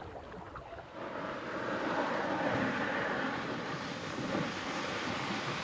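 Steady rushing noise of wind and lapping water on a sandy river shore, starting about a second in.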